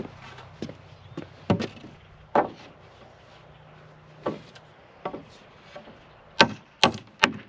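A wooden diagonal brace being nailed to wall-frame studs: a few scattered sharp knocks, then a quick run of about four loud strikes near the end, roughly two a second.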